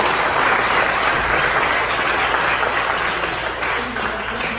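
Audience applauding, steady clapping that eases off slightly toward the end.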